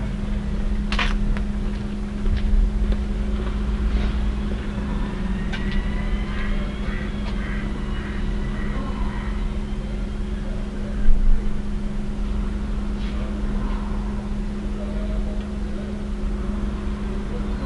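A parked vehicle's engine idling with a steady hum, heard from inside the cab, with a short louder knock about eleven seconds in.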